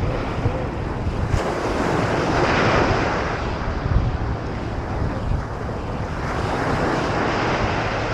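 Ocean surf breaking on the beach, swelling louder twice, a few seconds apart, with wind buffeting the microphone.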